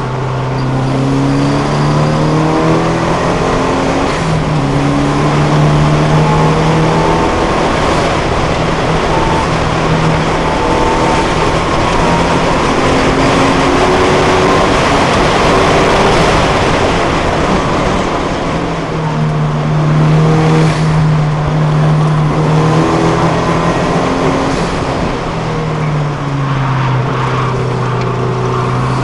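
Datsun 510's 1600 cc four-cylinder engine at racing speed, heard from inside the car: the engine note climbs through the revs and drops back at each gear change or lift, over loud wind and road noise.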